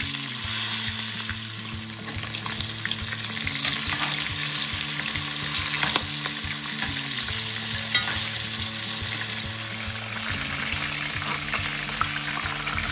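Chicken pieces frying in hot oil in a stainless steel wok: a steady sizzle, with a few sharp clicks of a metal spoon against the pan as the pieces are turned.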